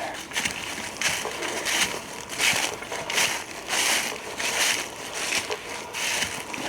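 Footsteps crunching through dry fallen autumn leaves at a steady walking pace, about two steps a second.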